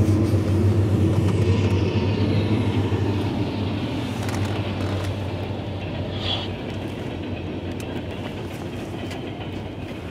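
Norfolk Southern coal train passing: the diesel locomotives' engine drone fades over the first few seconds as they move away, leaving the freight cars rolling over the rails with a clickety-clack that slowly grows quieter.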